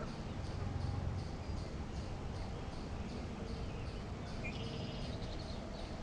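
Rhythmic high chirping, about three chirps a second, from a calling animal, over a steady low rumble. A brief different call cuts in about four and a half seconds in.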